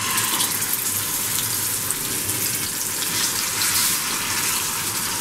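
Marinated seer fish steaks sizzling in hot coconut oil in a frying pan as they are laid in: a steady hiss.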